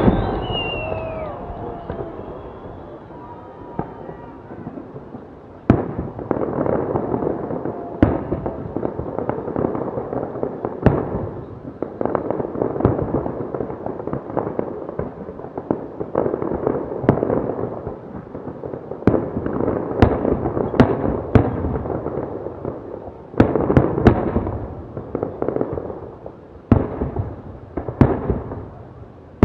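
Fireworks display: sharp bangs of bursting shells over a dense rumbling crackle. After a lull of a few seconds the bursts come thick and fast from about six seconds in.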